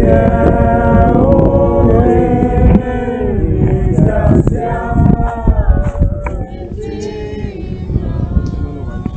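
A group of men and women singing together unaccompanied, several voices holding and moving between notes. A heavy low rumble lies under the first three seconds, after which the singing carries on more quietly.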